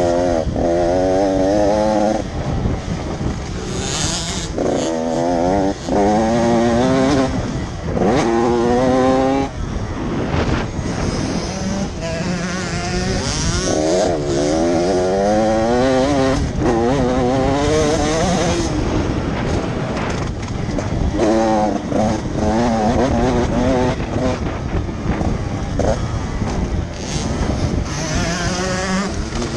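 Motocross bike engine heard from on the bike, revving up hard and dropping again and again as the rider accelerates, shifts and slows through the track's turns. Its pitch climbs in repeated sweeps, each lasting a second or two, with short breaks between them.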